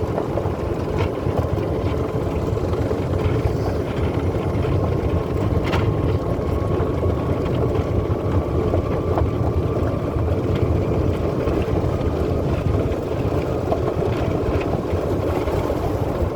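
Golf cart driving along, a steady rumble of its wheels and running gear with wind on the microphone.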